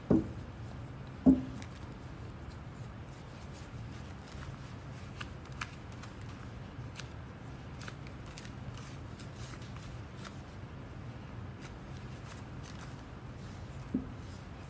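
Handling noises from oiling a small wooden piece with a metal tin of varnishing oil: two dull knocks about a second apart at the start and another near the end, with faint scattered ticks and rustles in between.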